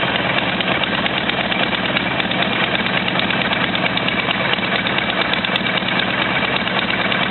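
Buell XB12Ss motorcycle's air-cooled 1203 cc V-twin running at a steady, even speed.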